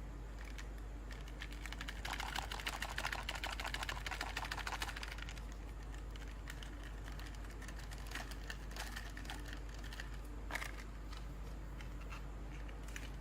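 Action-figure packaging and plastic toys being handled: a dense run of rapid crackling clicks for about three seconds, then scattered single clicks and taps.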